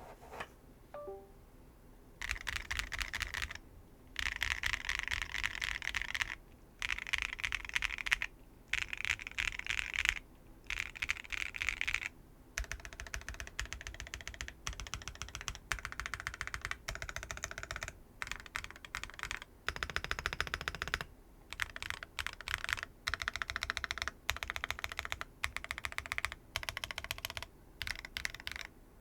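Typing on a Neo 80 mechanical keyboard fitted with Keygeek Butterfly linear switches on a carbon fiber plate, with no foams inside. Fast runs of keystrokes come in bursts of a second or two with short pauses, starting about two seconds in.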